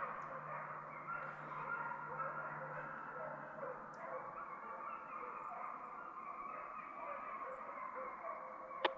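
A pack of deer-hunting hounds bays at a distance, many voices overlapping in a steady chorus, the sound of the dogs running a deer. A few sharp clicks come near the end.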